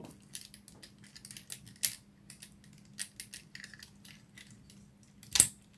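Plastic parts of a Transformers Alternators Shockwave toy clicking and ticking as its legs are pulled out and moved, with a sharper snap near the end.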